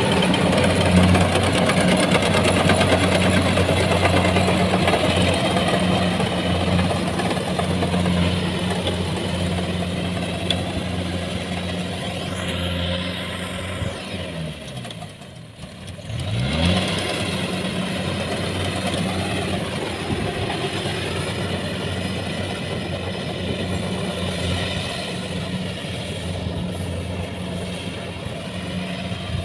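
Rice combine harvester's engine running steadily. About halfway through it slows, its pitch falling and the sound dropping away briefly, then it picks back up and runs on.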